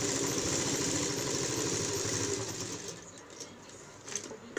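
Domestic sewing machine running steadily, stitching a seam through fabric, then winding down and stopping about three seconds in. A few light clicks of handling come near the end.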